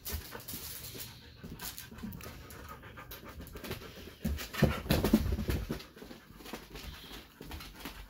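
Dog panting in quick, repeated breaths while searching, louder for about a second near the middle.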